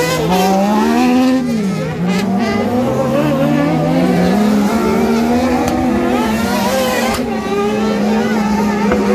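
Racing buggy engines on a dirt autocross track, revving up and falling back again and again as the cars accelerate out of and lift into the corners. A few short sharp cracks are heard about two seconds in and again near the seven-second mark.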